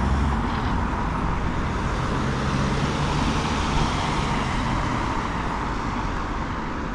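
Road traffic passing close by: a steady rush of tyres and engines, with one vehicle's low engine hum fading out about five seconds in.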